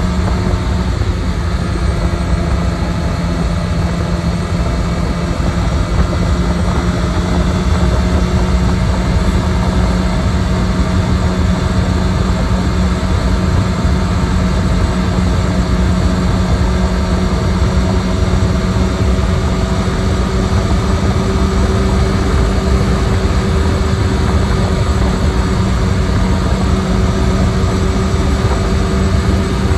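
Honda CB1000R inline-four engine running steadily at highway cruising speed, a constant drone under heavy wind and road rumble.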